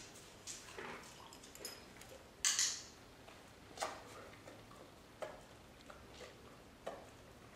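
A few short, sharp clicks and taps over faint room tone, the loudest about two and a half seconds in, the rest softer and spaced a second or more apart.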